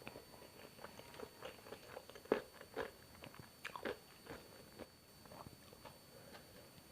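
Close-miked eating: a person biting and chewing food, with crisp crunches and wet mouth clicks, the sharpest crunch about two seconds in and a cluster of bites near the four-second mark.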